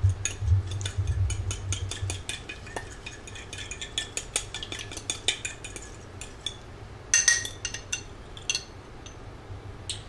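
A metal fork whisking an olive-oil and lemon vinaigrette in a bowl: quick, uneven clicking of the tines against the bowl, busiest in the first half and thinning out later, with a few sharper clinks about seven seconds in.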